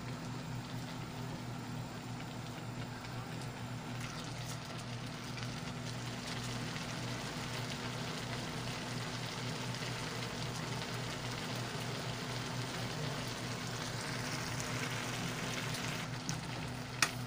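Shrimp, string beans and coconut milk sizzling steadily as they simmer in an aluminium wok, over a low steady hum. A single sharp click sounds near the end.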